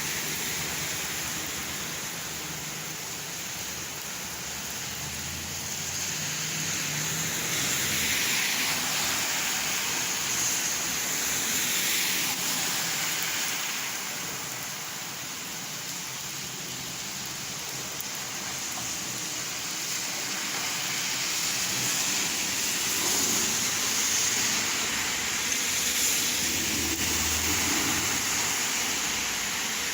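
Steady rain falling and splashing, a continuous hiss that swells and eases slowly every several seconds.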